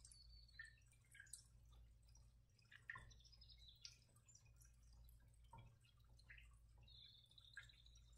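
Near silence: room tone with a low steady hum and faint, scattered short high ticks and chirps.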